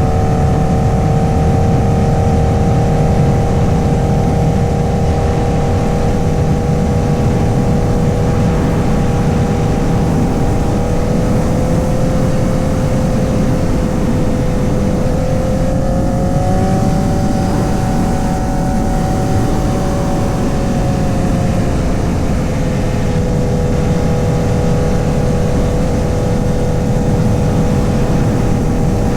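Honda CBR1000RR's 999cc inline-four running at a fairly steady cruise, its pitch rising a little about two-thirds of the way through, then easing back. A heavy low rumble of wind and road noise sits under the engine.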